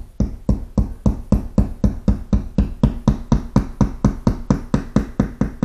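Claw hammer tapping a drywall anchor into a wall with quick, even blows, about four a second.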